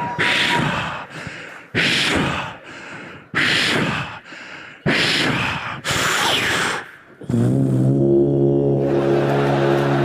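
A man's mouth sound effects into a handheld microphone, a series of heavy, booming thuds about one and a half seconds apart imitating footsteps approaching in the distance. About seven seconds in, a steady, low sustained musical tone begins.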